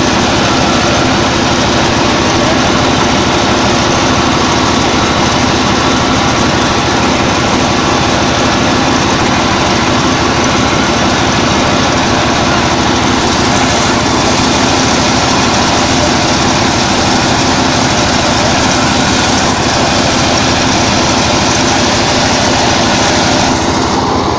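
Rice combine harvester running steadily at working speed: an even engine drone with the machine's mechanical noise over it. A higher hiss joins about halfway through.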